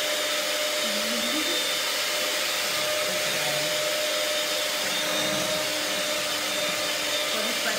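Electric hand mixer running steadily, its beaters whisking flour into a batter of whipped eggs and sugar in a glass bowl, with a steady motor whine.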